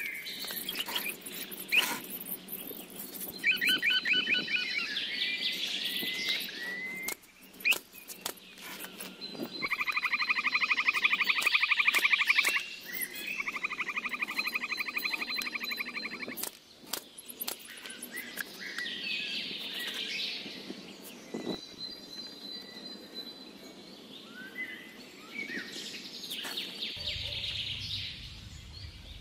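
Birds chirping and calling, including a loud buzzing trill heard twice around the middle, over sharp clicks and knocks of handwork on a small wooden frame, with a pneumatic brad nailer firing once about two seconds in.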